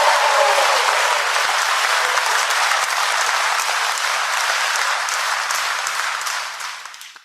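Audience applause: a crowd clapping steadily, fading out over the last second.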